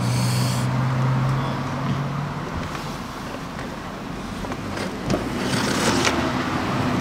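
Road traffic going past: a vehicle's steady engine hum that fades after about two and a half seconds, then the noise of another vehicle building toward the end. A single knock about five seconds in as the Sur-Ron battery pack is set into its bay in the frame.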